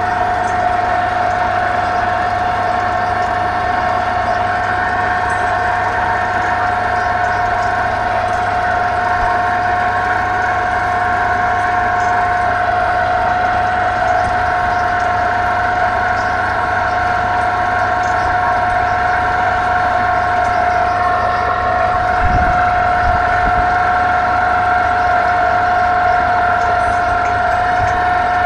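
Sheet-piling rig machinery running steadily: an engine drone with a constant high-pitched whine over a low hum. A few low thuds come about three-quarters of the way through.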